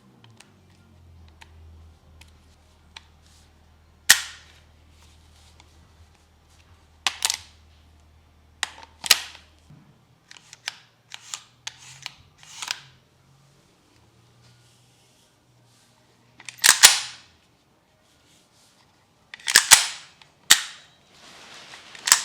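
Vorsk VMP-2 airsoft gun firing sharp single shots and short runs of two or three, with fainter mechanical clicks of the gun being handled in between.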